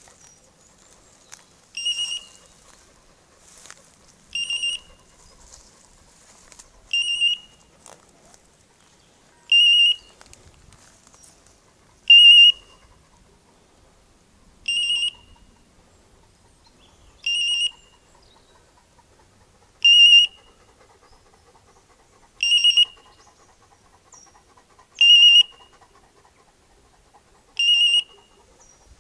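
Hunting dog's beeper collar sounding its point-mode signal: a warbling electronic beep about half a second long, repeating evenly every two and a half seconds, which tells the hunter the setter has stopped on point.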